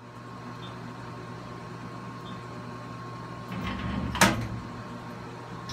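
Vertical machining center running with a steady hum, then its carousel automatic tool changer moving: a motor drive comes in about three and a half seconds in and a single loud mechanical clunk follows about half a second later.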